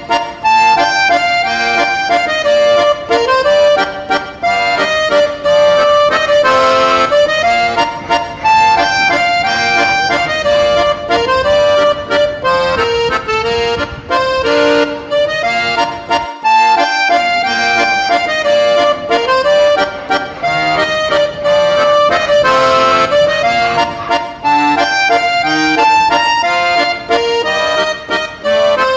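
Instrumental background music: a continuous tune with a clear melody line stepping from note to note over a steady accompaniment.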